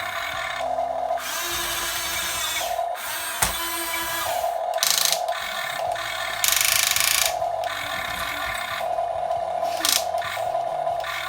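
Huina 1550 RC excavator's small electric gear motors whining in short stop-start runs, with ratcheting gear noise and bursts of rattling and scraping as the machine works.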